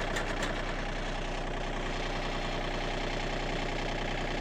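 John Deere 2032R compact tractor's three-cylinder diesel engine running steadily while its loader-mounted hydraulic post hole auger bores slowly into sandy fill.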